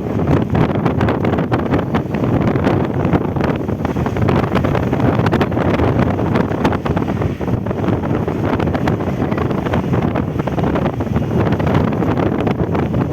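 Strong gusting wind buffeting the microphone: a loud, steady rumbling rush with constant crackling.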